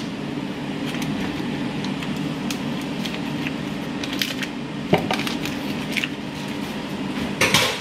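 Ninja Foodi 2-basket air fryer running with a steady fan hum. Over it come a few scattered knocks and scrapes of cooking in a pot, the loudest about five seconds in and again near the end.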